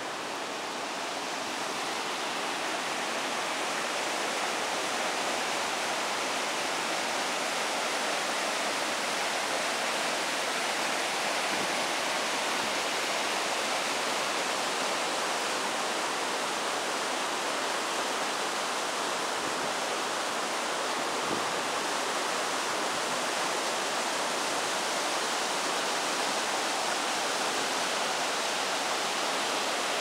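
Fast-flowing mountain river rushing and splashing over rocks and a stone weir as white water. A steady rushing that grows a little louder over the first few seconds.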